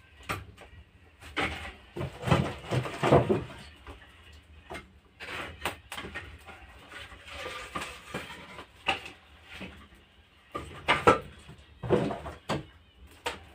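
Split firewood knocking and clattering as logs are loaded into the firebox of a wood-fired banya stove, with clanks of the stove's metal firebox door. The knocks come in irregular clusters.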